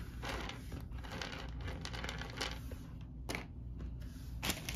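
Small plastic game figures clicking and clattering against each other and the wooden tabletop as a hand moves a heap of them, in a few scattered clicks.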